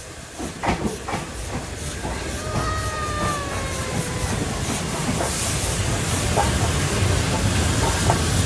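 Steam locomotive 60163 Tornado, a Peppercorn A1 Pacific, drawing alongside with steady steam hiss and rail clicks, growing louder as it passes close by. A faint drawn-out tone sags slightly in pitch between about two and four seconds in.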